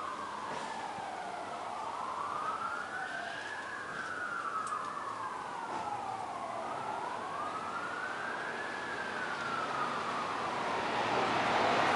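Emergency vehicle siren wailing, a slow rise and fall in pitch repeating about every three seconds. Traffic noise swells up near the end.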